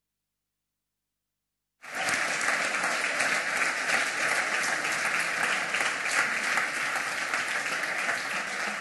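Dead silence for nearly two seconds, then audience applause cuts in suddenly and carries on steadily: many hands clapping in a large hall.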